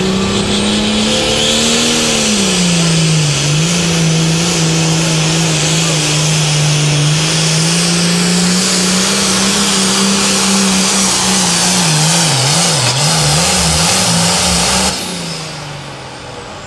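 John Deere pulling tractor's engine running flat out under load as it drags the weight-transfer sled. The engine note holds steady, wavers up and down about 12 seconds in, then falls away about 15 seconds in as the engine is let off at the end of the pull.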